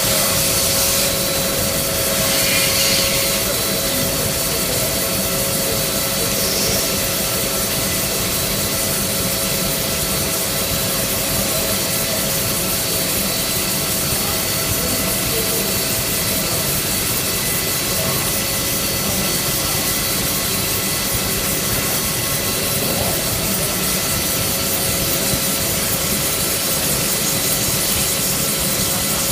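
Palmary OCD-3240P CNC cylindrical grinder running steadily, its grinding wheel working a part with an even hiss over several steady whine tones.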